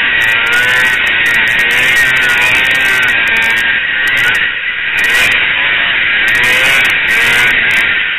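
Racing snowmobile engine running hard, its pitch rising and falling with the throttle and easing off briefly about halfway through, heard loud and distorted through a helmet camera.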